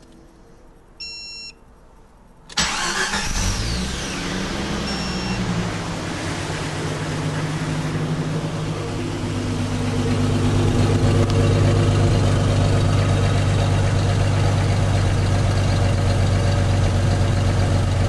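Jeep Cherokee XJ engine starting after a short beep, catching quickly and settling into a steady idle that gets a little louder about ten seconds in. It exhausts through a rotted-out, worn-out factory muffler.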